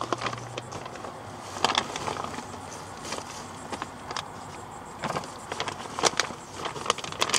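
Crinkling and rustling of a bag of horse treats as it is handled and opened, in irregular crackles and sharp clicks.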